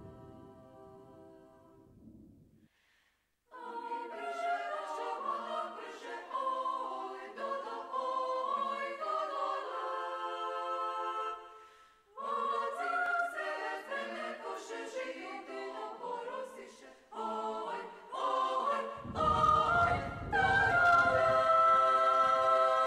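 Women's choir singing a cappella, starting after a short pause about three and a half seconds in, with a brief break about twelve seconds in. Near the end a deep low sound comes in under the voices and the singing grows louder.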